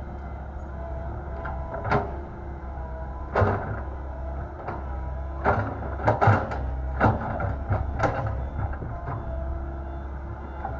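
Komatsu PC120-8 hydraulic excavator running steadily with a faint hydraulic whine, and a series of sharp metallic clanks and knocks from the bucket and arm as it works, about seven between two and eight seconds in.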